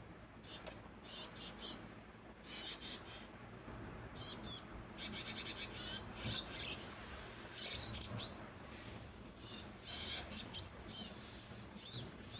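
Japanese tits calling back and forth in a lively exchange: short bursts of high, buzzy notes and quick rattling series, coming every second or so with brief gaps.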